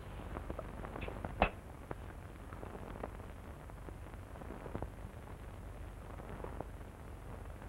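Crackle and scattered pops from an old 1931 film print's optical soundtrack, over a steady low hum, with one louder pop about one and a half seconds in.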